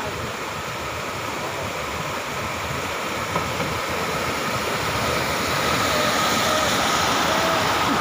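Muddy floodwater rushing steadily along a path, growing a little louder about five seconds in.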